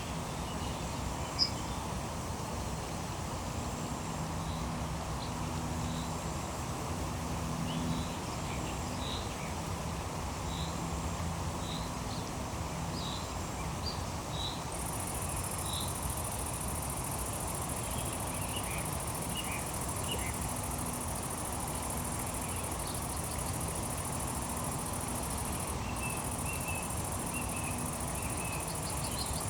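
Outdoor nature ambience with a steady background hiss, birds chirping now and then, and a faint low hum. About halfway through, a high, continuous insect trill sets in, like crickets.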